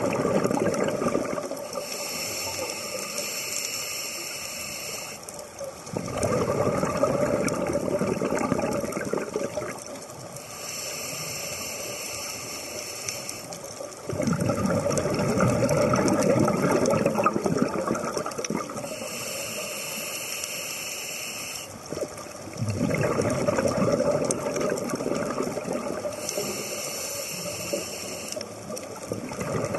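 Scuba diver breathing through a regulator underwater: a hissing inhale through the demand valve, then a longer burble of exhaled bubbles. The cycle repeats about every eight seconds, four breaths in all.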